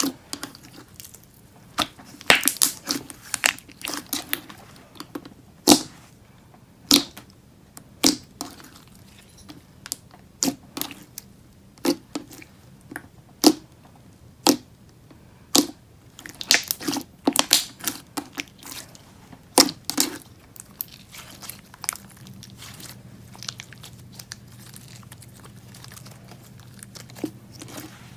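Thick, glossy slime with foam and marshmallow beads being worked by hand, giving sharp bubble pops and clicks at irregular intervals, sometimes in quick clusters, with soft crinkling between them.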